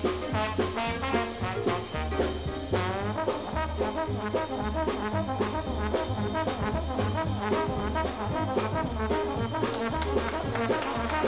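Slide trombone playing a hot jazz solo over a swinging Dixieland-style band, with bass notes and drums keeping a steady beat.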